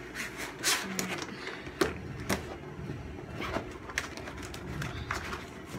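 Thin plastic sheet of a foldable shoe box being bent and creased by hand, giving sharp crackles and clicks, one every second or so.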